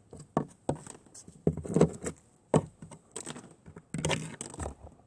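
Plastic toy animal figures tapped and knocked on a hard surface in an irregular series of light clicks and small thumps, as they are hopped along.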